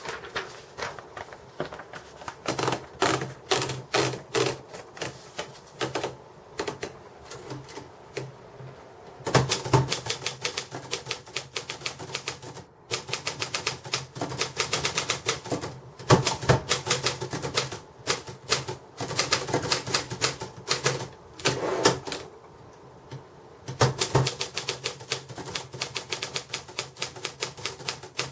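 UNIS tbm de luxe manual typewriter being typed on: rapid key strikes in bursts of several seconds, with brief pauses between runs.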